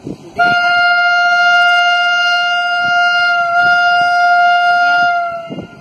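Indian Railways WAG9 electric locomotive's air horn giving one long steady blast of about five seconds, dropping slightly in pitch as it cuts off. It is a warning to track workers (gangmen) on the line ahead to clear the track.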